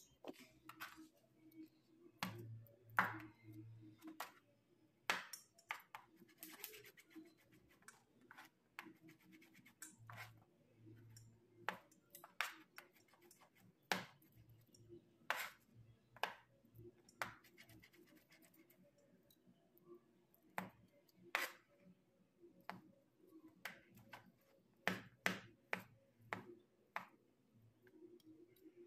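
Knife cutting potatoes into cubes on a cutting board: irregular sharp taps of the blade striking the board, several strong ones, with faint scraping between.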